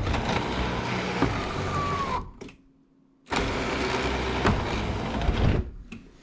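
Honda CRX electric sunroof motor running twice, about two and a half seconds each with a pause of about a second between, as the panel is driven along its tracks on newly fitted lifters. The first run carries a brief faint squeak.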